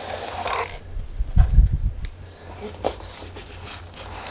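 Hands rustling and handling gear inside a padded fabric carry bag, with a few low thumps about a second and a half in and a light click or two later.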